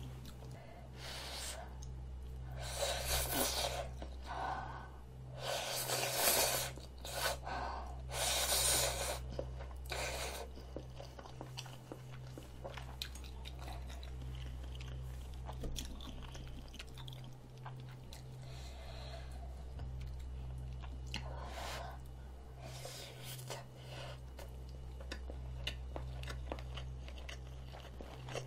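A person eating spicy rabokki (ramen noodles and rice cakes in sauce) close to the microphone. There are several loud slurps of noodles in the first ten seconds, then softer chewing.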